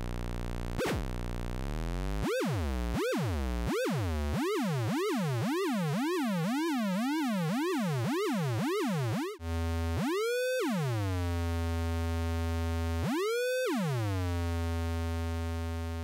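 Electronic buzzing tone from a 555 oscillator clocking a CD4040 binary counter, played through a small Orange guitar amp. The pitch slides up and down in repeated swoops as a counter output charges and discharges a capacitor on the 555's control-voltage pin. About halfway through, the pattern changes to a held low buzz broken every three seconds or so by a quick swoop up to a high pitch and back.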